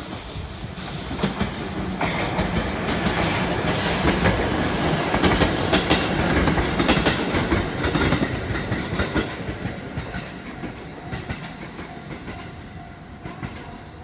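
Abukuma Express 8100 series two-car electric train passing close by, its wheels clicking over the rail joints. It is loudest from about two to nine seconds in, then fades as it draws away.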